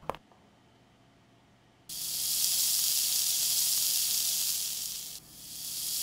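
Sound effect of falling rain: a steady, even hiss that starts suddenly about two seconds in, cuts off briefly near the end, then swells back up and fades.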